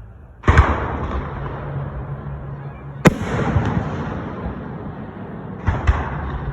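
Fireworks: aerial shells bursting with sharp bangs about half a second in and about three seconds in, then a quick double bang near six seconds. Each bang trails off in a long echoing rumble.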